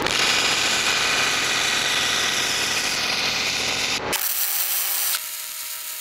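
A power tool working metal, a loud steady harsh rasping noise that cuts off about four seconds in to a quieter steady whine holding a few pitches.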